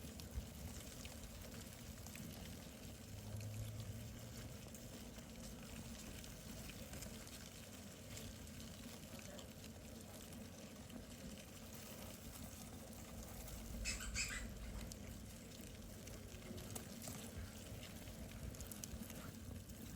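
Faint rustling and scratching of dubia roaches crawling over one another and their food, with a brief louder scratchy patch about 14 seconds in.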